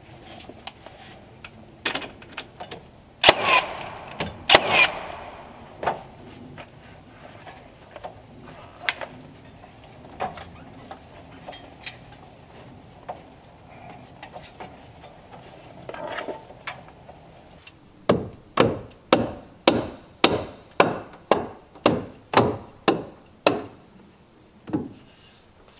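Hammer driving nails into a wooden trim board: a few scattered knocks in the first seconds, two of them loud and ringing, then a steady run of about ten blows, roughly two a second, in the last third.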